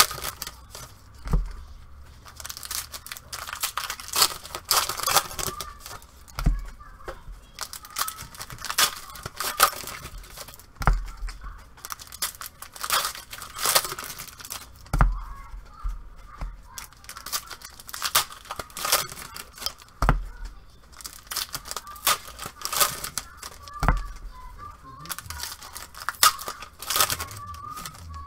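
Foil baseball card packs being torn open and their wrappers crinkled by hand, with many sharp crackles, and soft low thumps every four to five seconds.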